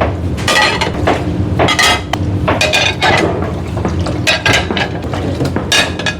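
Dishes and cutlery clattering and clinking as they are handled for washing, in a run of sharp knocks over a steady low kitchen hum.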